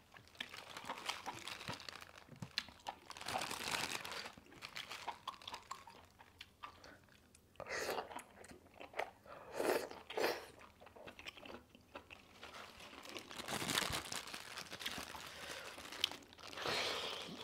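Close-up eating sounds of octopus in spicy sauce: irregular crunching, biting and wet chewing in bursts. Near the end, a thin plastic glove crinkles.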